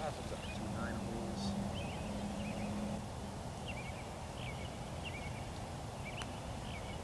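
Small birds chirping again and again in the background, with a low steady hum during the first three seconds. A single sharp click a little after six seconds: a putter striking a golf ball.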